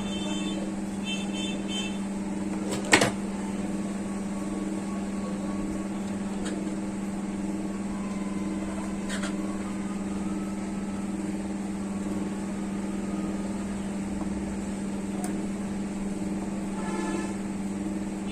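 A steady low hum throughout, with a single sharp click about three seconds in.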